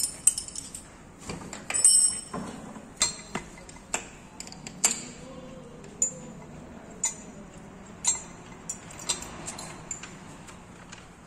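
Metal spanner clinking and tapping against fittings on a truck diesel engine: sharp metallic clinks, irregular, about one a second.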